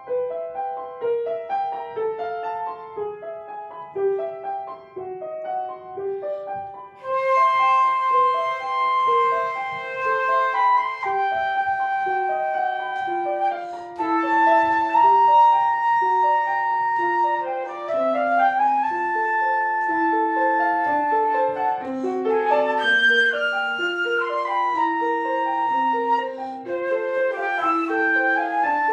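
Piano playing an introduction, then a wind instrument enters about seven seconds in with a melody of held and sliding notes over the piano accompaniment.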